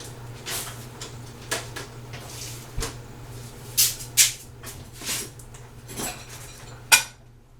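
Kitchen clatter of dishes and a plate holder being handled and loaded into a dishwasher: a run of short knocks and clacks, the sharpest about seven seconds in, over a steady low hum.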